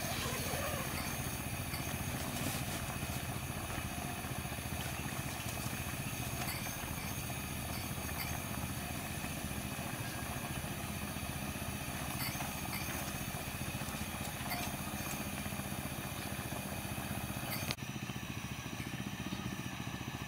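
A steady low motor-like rumble over a faint even hiss, with a few light clinks.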